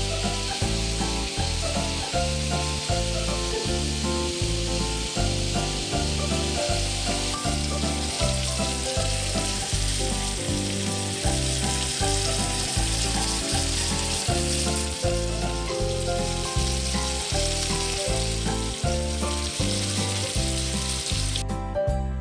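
Food sizzling as it fries in a pan, a steady hiss that stops suddenly near the end, under background music with a steady beat.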